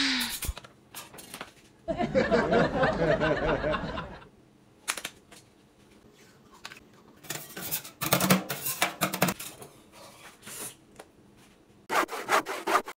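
Cutlery clicking and scraping on a plate, in scattered sharp clicks, with a drawn-out wavering vocal sound of about two seconds near the start that is the loudest part.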